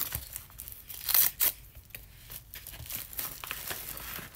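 A yellow shipping envelope being torn open by hand: a run of ripping and crinkling, with the loudest rips a little over a second in.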